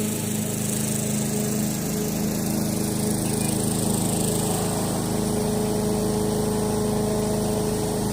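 Lawn mower running steadily while cutting grass.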